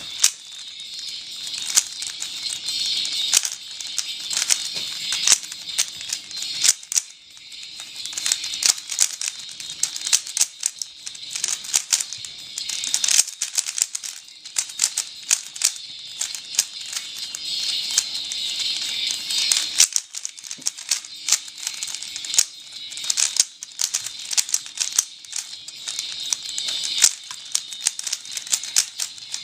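Dayan LunHui 3x3 speedcube being turned fast during a solve: rapid, almost continuous plastic clicking and clacking of the layers, with short pauses about a quarter of the way in and again about two thirds in.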